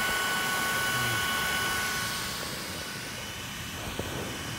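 Small 40 mm electric cooling fans on a Traxxas XO-1 RC car's motor and ESC running, a steady whirring hiss with a high whine in it. It gets somewhat quieter about halfway through, with a light click near the end.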